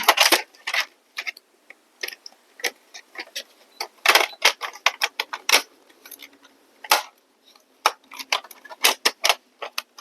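Irregular clicks and taps of small hard parts and tools being handled, a few louder clusters among many light ticks.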